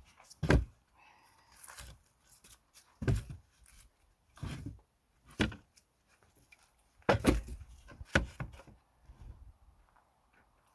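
Pine firewood logs being handled and set down, giving about six heavy wooden thunks at irregular intervals, with lighter knocks between.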